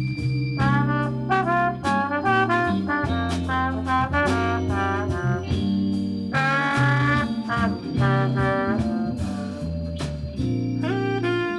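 Military concert band playing a jazzy Christmas arrangement: brass section with trumpets and trombones playing short punchy phrases over a walking bass and drums, with a held chord a little past the middle.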